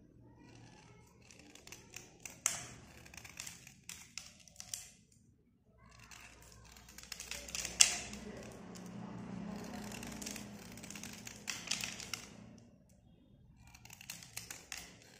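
A thin metal blade scraping the edge of a white slate pencil bar: bursts of short, scratchy scraping strokes with brief pauses between them, as chalky shavings flake off.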